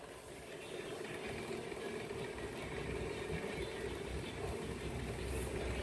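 Electric stand fan running with a steady low hum.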